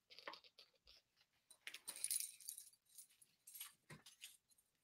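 Faint clinking and jingling of a large crystal rhinestone necklace on a velvet display bust as it is handled and turned, a string of small scattered clicks that thickens about two seconds in.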